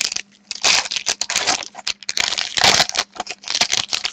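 Trading-card pack wrapper crinkling and tearing as a pack of hockey cards is opened, in several bursts of rustling.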